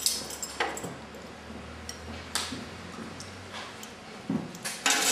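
A few light, scattered clinks and knocks of a syrup bottle and a metal jigger being handled over a glass mixing glass, with a quiet pause between them.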